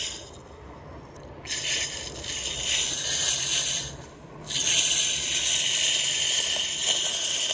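A steady high-pitched hiss that cuts in about a second and a half in, drops out briefly around four seconds, and comes back.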